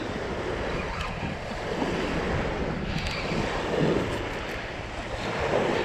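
Small waves washing onto a sandy beach, with wind buffeting the microphone.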